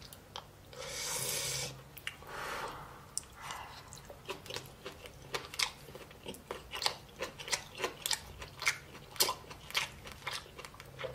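A person chewing a mouthful of beef and rice close to the microphone. Two brief breath sounds in the first few seconds, then a steady run of wet mouth clicks and smacks, a few each second.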